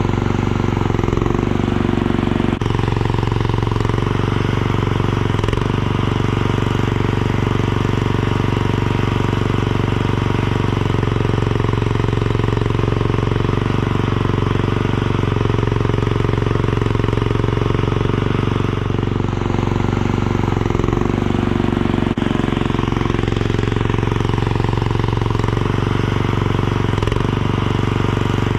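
Mini skid steer's engine running steadily at a constant speed, with only small changes in pitch and level as the machine works.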